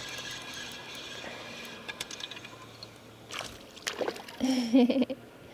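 Spinning reel being cranked with a steady high whine while a hooked smallmouth bass is fought in, then the bass splashing at the surface beside the kayak about three to four seconds in. A short voiced exclamation follows near the end.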